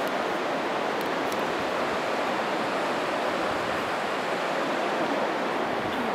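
Shō River rushing steadily over shallow rapids, a constant hiss of moving water.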